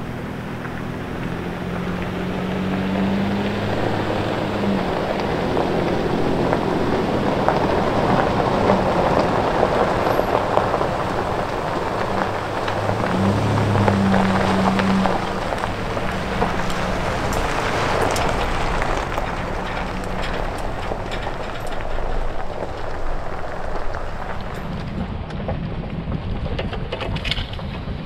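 Nissan Frontier pickup driving on a gravel road: a steady crunch and hiss of tyres on gravel over the engine, with the engine note swelling twice. The sound is loudest around the middle.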